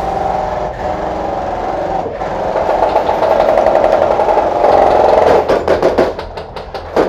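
Airsoft electric guns firing on full auto, a continuous rapid rattle that grows louder about halfway through and breaks into separate short bursts near the end.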